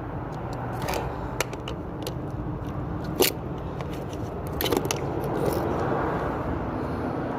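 Scattered sharp clicks and scrapes of small hard objects being handled, five or so, the loudest a little past three seconds in, over a steady low background rumble.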